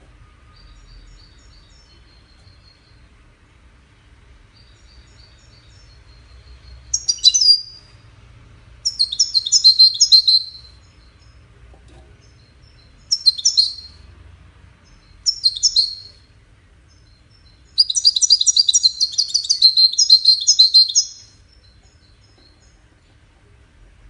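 European goldfinch singing: a few faint twittering phrases, then five loud bursts of rapid high trills, the last and longest lasting about three seconds.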